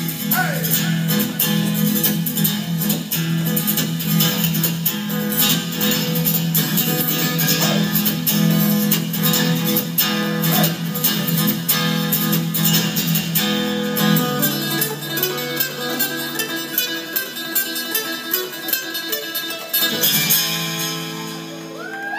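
Instrumental break of a song played on guitar, strummed quickly and steadily. The sustained low notes underneath drop out about two-thirds of the way through, and there is a brief break near the end.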